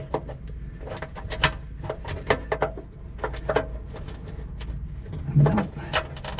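Irregular small clicks and taps of metal parts: a bolt and fittings being fumbled into place by hand while the aircraft fuel shutoff valve is fitted. A brief louder, lower sound comes about five seconds in.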